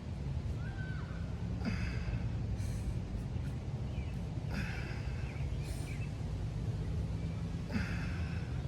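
A man breathing hard through bodyweight ab exercises, with short, forceful exhalations every one to two seconds over a steady low background hum.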